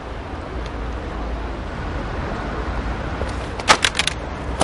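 Steady city street hum. Near the end comes a quick run of four or five sharp clatters and slaps as a dropped bag, magazines and small objects hit the pavement.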